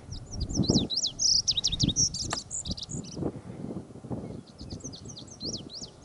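Male lazuli bunting singing: a rapid, jumbled run of short, high notes lasting about three seconds, then after a short pause another song starts about four seconds in. A low, gusty rumble runs underneath.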